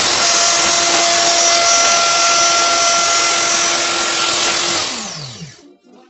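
Electric power tool motor running at full speed, a loud steady whine over a rushing noise, then switched off about five seconds in, its pitch falling as it spins down.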